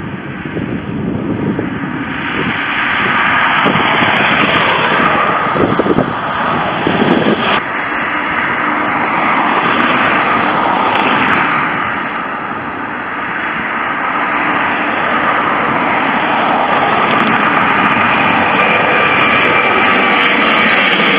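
Jet airliner engines at close range: a loud, steady rush that builds over the first couple of seconds. After a cut about eight seconds in, a Ryanair Boeing 737 passes low overhead.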